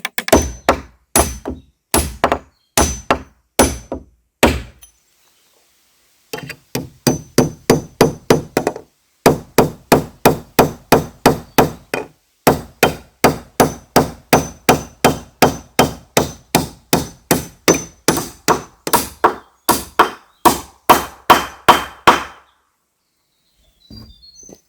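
Hammer blows repeated rapidly and evenly, about three a second, with a faint metallic ring on many strokes. They pause for about a second and a half around five seconds in and stop a couple of seconds before the end.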